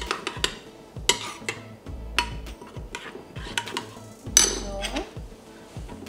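Cutlery and dishes clinking and clattering in a series of short, sharp clinks, typical of a spoon working in a bowl; the loudest clink comes about four and a half seconds in and rings briefly.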